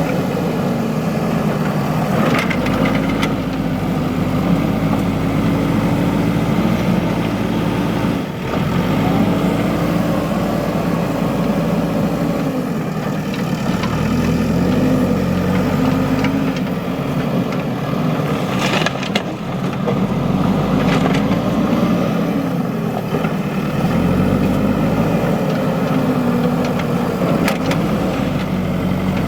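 JCB 3DX backhoe loader's diesel engine running, its pitch rising and falling every few seconds as it works under load, with a few short knocks.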